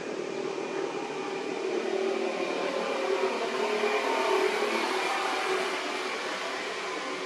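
A distant engine drone that swells over a few seconds and then fades, like a vehicle passing.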